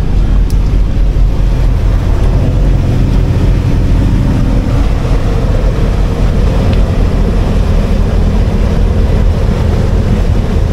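Cruise boat under way, its engine giving a steady low drone, mixed with the rush of wind and water past the hull.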